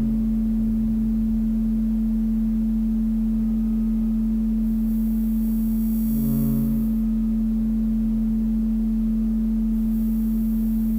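Ambient drone music: one steady low tone held throughout, with a swell of ringing higher overtones about six seconds in and another starting near the end.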